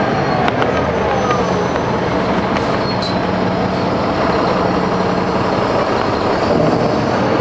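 Caterpillar C13 ACERT diesel engine of a 2009 NABI 416.15 transit bus running at a steady pitch, with a couple of light clicks about half a second in.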